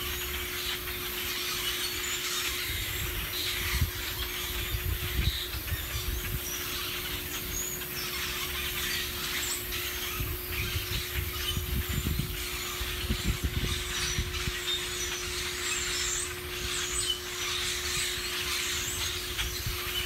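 Wind buffeting the microphone in gusts, with many birds chattering in the trees overhead as short scattered calls. A faint steady hum runs underneath.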